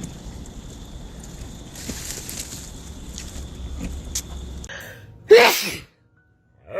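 A single loud sneeze about five seconds in, over a low steady background rumble.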